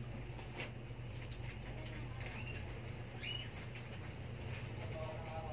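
Newborn kittens squeaking while they nurse: a couple of short, high chirps about a second apart, then a brief mew near the end.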